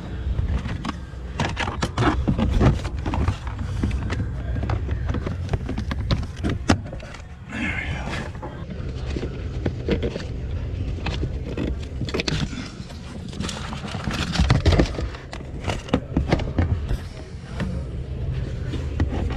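Irregular clicks, knocks and rustles of a car's interior trim and carpet being pushed and fitted back into place, over a steady low hum.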